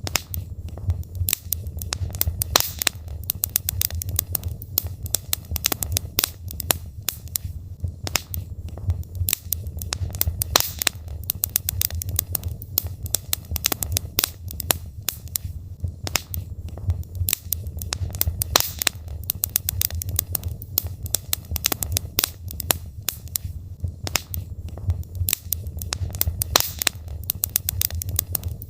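Wood logs burning in a fireplace, crackling and popping irregularly, many small snaps a second, over a steady low rumble of the fire.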